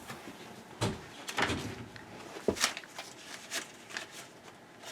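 Several short knocks and clicks at irregular intervals over faint room noise.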